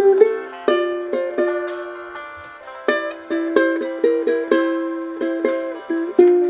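Solo ukulele playing a melody with chords, the plucked notes starting sharply and ringing out as they fade.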